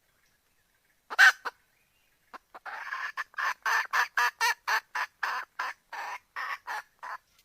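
Red junglefowl hen calling a cock: one loud squawk about a second in, then a rapid run of clucking calls, about three a second, that ends near the close.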